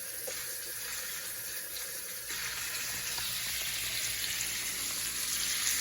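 Chicken thighs sizzling in a hot frying pan as they brown, a steady hiss that gets louder about two seconds in.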